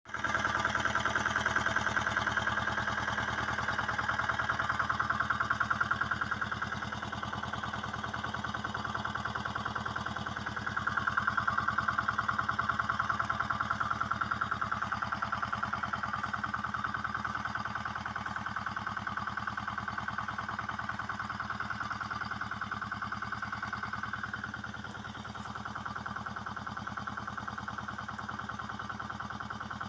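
A steady mechanical drone, like an engine running, with an even, rapid pulse, a low hum and a buzzy upper tone. It grows louder for a few seconds near the start and again around a third of the way in, then eases off.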